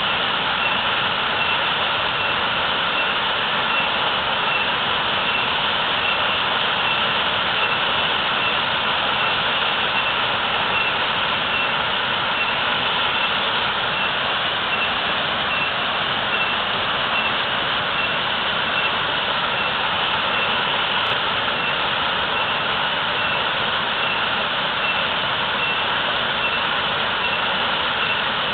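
A natural waterfall's water pouring down and rushing in a steady, unbroken roar.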